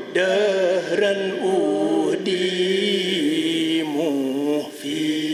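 A man chanting religious verses in Arabic, in the manner of a Mouride khassaid recital. The voice holds long notes that waver and glide, with a short break near the end.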